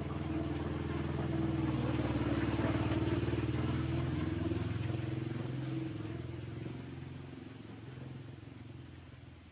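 A motor vehicle's engine hum, most like a passing motorcycle, growing louder over the first two seconds or so and then slowly fading away.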